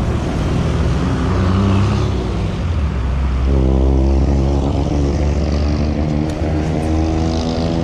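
Road traffic with a motor vehicle's engine running close by: a steady low rumble, joined about three and a half seconds in by a steady engine drone that holds to the end.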